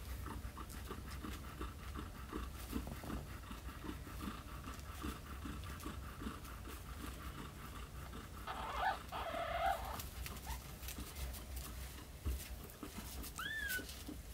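Newborn kittens nursing: soft, wet suckling and smacking sounds throughout. A kitten gives a short run of squeaky cries about nine seconds in, and a single high mew near the end.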